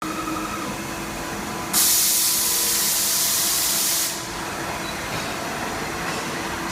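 CNC router running with a steady machine whine. Just under two seconds in, a loud hiss starts suddenly and cuts off about two and a half seconds later.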